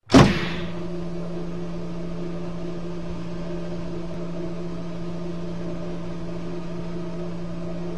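A steady low machine hum, opening with a sharp burst of noise and then holding one even pitch with several overtones.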